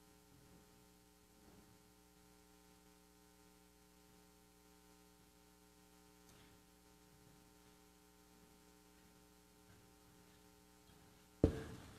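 Steady electrical mains hum, a set of faint even tones. Near the end comes a single sharp knock, much the loudest sound, which rings briefly.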